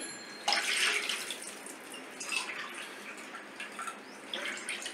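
Water poured from a steel tumbler into a frying pan, splashing in a few short pours.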